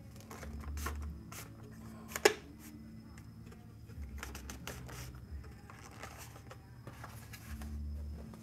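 Faint handling noises as a foam RC glider's wing and fuselage are pressed together: light scraping and rubbing, a sharp click about two seconds in, and a few dull low rumbles.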